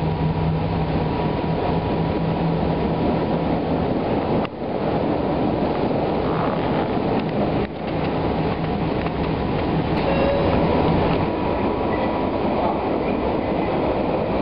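Light rail car running, heard from inside the passenger cabin: a steady rumble of wheels on the rails with a constant hum, briefly dipping twice and with a single click near the end.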